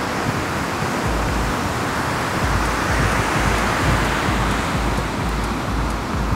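Wind blowing across the microphone: a steady rushing hiss with low buffeting rumbles, swelling a little midway.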